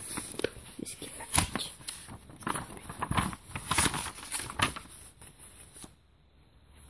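Pages of a picture book being flipped by hand: a run of quick paper rustles and flaps, stopping about five seconds in.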